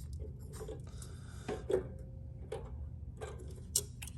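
Handling of welding supplies: a spool of flux-core welding wire and its box being fumbled with, giving scattered light clicks, taps and rubbing, about eight sharp clicks at uneven intervals.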